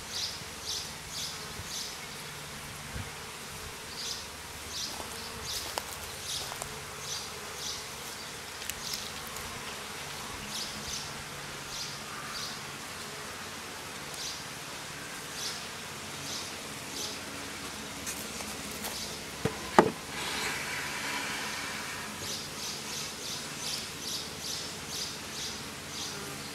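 Honey bees buzzing around an open hive, a steady hum, with short runs of high-pitched chirps repeating throughout. A single sharp knock comes about twenty seconds in.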